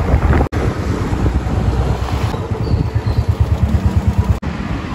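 Royal Enfield motorcycle running, heard from the rider's camera in short clips cut together. In the later stretch the engine ticks over with a quick, even pulse of about seven beats a second.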